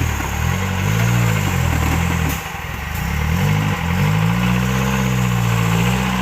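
4x4 off-road vehicle's engine revving up and down in repeated swells, dropping back briefly about halfway through.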